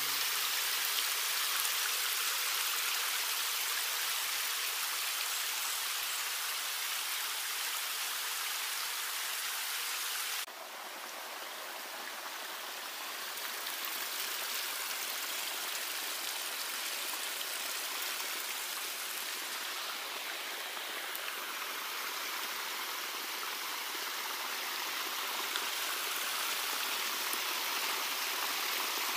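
Steady rush of a flowing stream. About ten seconds in the water sound drops abruptly and changes, as at a cut, then runs on evenly.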